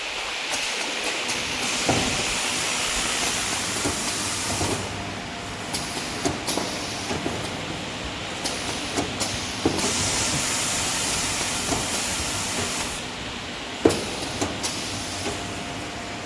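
Toilet-paper log band saw cutting machine running: a steady hissing machine noise with scattered knocks and clicks. The noise grows louder about two seconds in and falls off near the end, just before a single sharp knock.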